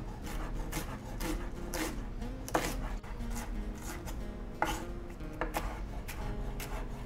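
Raw vegetables being shredded by hand in a run of irregular strokes, with a few louder ones about two and a half and four and a half seconds in.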